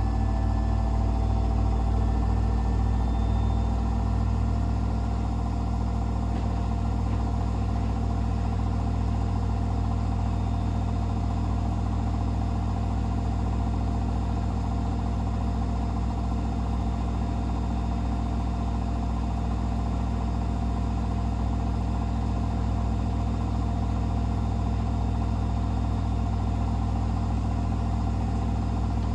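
Hoover H-WASH 500 front-loading washing machine spinning its drum at speed, typical of the final spin near the end of a cycle. A steady low motor hum with a constant whine, slightly uneven for the first few seconds before settling.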